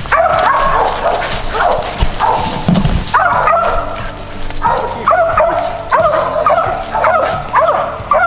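A hunting dog barking over and over in quick runs of sharp barks, over background music.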